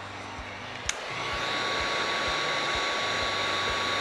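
Electric heat gun running, blowing hot air onto the pinched end of a PVC pipe to soften it. It comes on after a click about a second in and settles into a steady rush of air with a thin whine.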